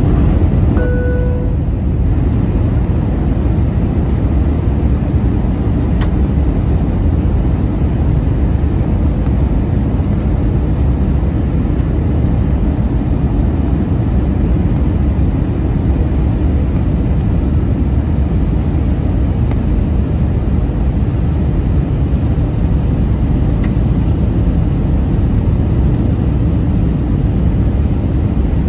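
Steady low roar of an Airbus A320's jet engines and rushing air, heard from inside the passenger cabin during the approach. A brief beep-like tone sounds about a second in.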